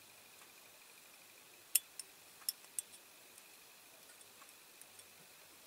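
A few sharp, light clicks and taps, four close together about two seconds in and fainter ticks after, from handling a diecast model car body held in a bent-wire holder, over a faint steady high tone.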